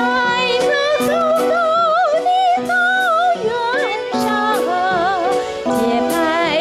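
A live band playing a song: a woman sings a high melody with wide vibrato over held electric keyboard chords, bass and a drum kit. Cymbal or hi-hat strokes come about every half second.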